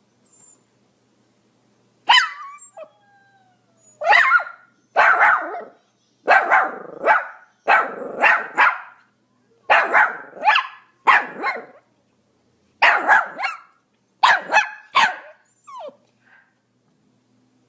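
Pomeranian barking: about twenty short, sharp yaps in quick bursts of two or three, with brief pauses between bursts.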